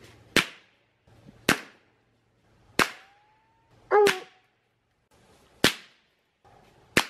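Six shots from a .22 Long Rifle, fired at about one to one-and-a-half-second intervals, each a sharp crack with a short tail. A thin whining tone briefly follows the third shot.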